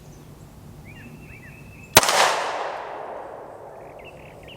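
Canik TP9 Elite SC 9mm pistol firing: one shot about two seconds in, its sound dying away over about two seconds, and a second shot right at the end. Faint bird chirps come before the first shot.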